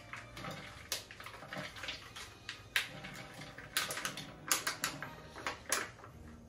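Irregular short clicks and knocks of kitchen utensils and containers as candied citrus peel is being chopped, several sharp knocks falling between about three and six seconds in.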